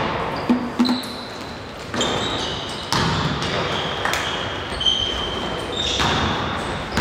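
A basketball bounces twice on a sports-hall floor, then sneakers squeak in several short, high squeals as players run and stop, with further ball bounces among them, echoing in the hall.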